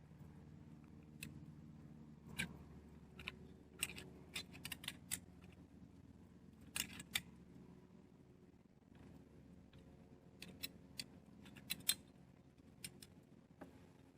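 Aluminum pull-tab lid of a sardine can being worked off and handled: faint, irregular sharp clicks and light metallic taps, some coming in quick clusters.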